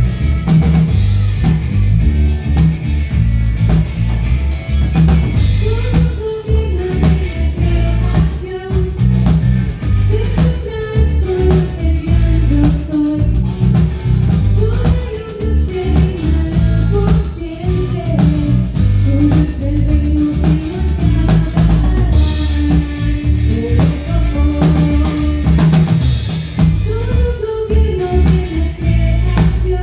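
Live band playing a song through a PA sound system: drum kit, electric guitar and congas over a steady beat, with a melody line that comes in about six seconds in.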